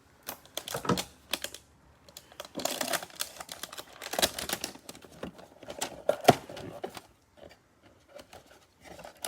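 Trading-card packaging handled by hand: an irregular run of clicks, taps and rustles from cardboard and plastic wrap as a hanger box of football cards is taken up and opened. The sound is busiest in the middle and sparse near the end.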